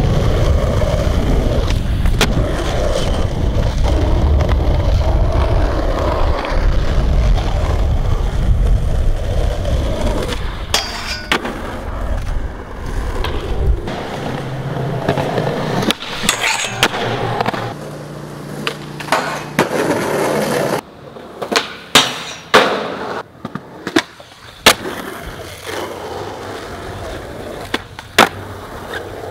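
Skateboard wheels rolling hard over pavement with a steady rumble. After a change partway through, several sharp wooden clacks follow, the board being popped and landing on tricks.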